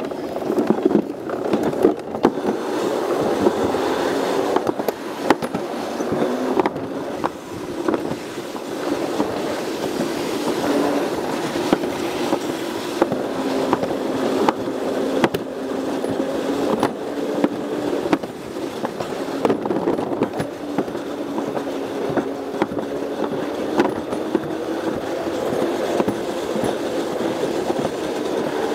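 Alpine slide sled running fast down a concrete track: a steady rattling rumble with a hum that drifts slowly in pitch, and frequent sharp clicks.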